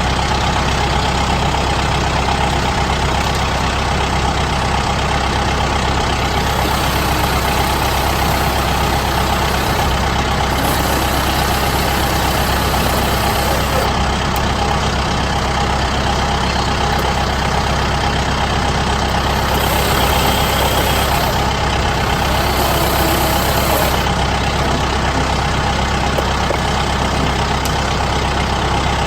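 Diesel engine of a Kubota M7060D tractor running steadily, with a steady tone held over the engine noise.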